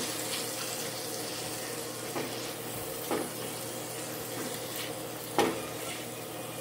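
Shrimp and sliced bell peppers sizzling steadily in a nonstick frying pan, with a spatula scraping the pan a few times, the last stroke the loudest.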